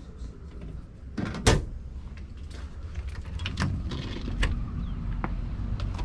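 A sharp knock about a second and a half in, then a few lighter clicks, over a low, steady rumble of background noise.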